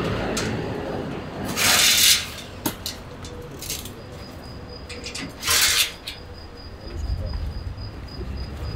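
Unpacking of a steel-framed motorcycle shipping crate: two short hissing bursts about two and five and a half seconds in, amid scattered light clicks and clinks, with a low rumble near the end.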